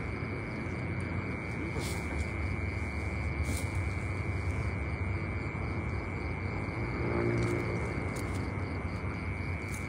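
Crickets and other night insects trilling in one steady high-pitched chorus over a continuous rushing noise.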